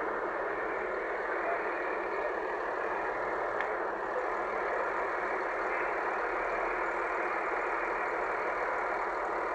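Steady hubbub of a busy bus terminal: buses running amid a crowd of travellers, an even din with no single sound standing out.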